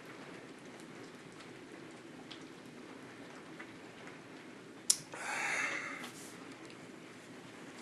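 Steady rain with scattered faint drop ticks. About five seconds in, a sharp click comes, followed at once by a hiss that lasts about a second.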